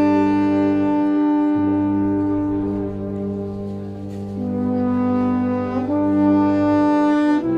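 Background music of slow sustained chords held by brass-like tones, changing every second or two.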